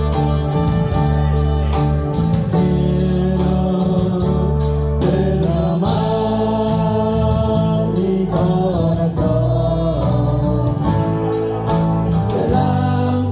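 Live Christian worship music: a band plays over sustained bass notes and a steady beat, with voices singing.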